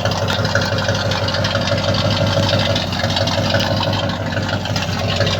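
Ford Galaxie's V8 engine idling steadily with a strong, deep rumble.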